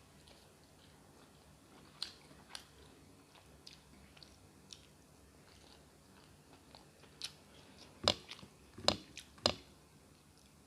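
A person chewing and biting into a fried chicken leg piece close to the microphone: scattered soft wet clicks, then a few louder crunches about eight to nine and a half seconds in.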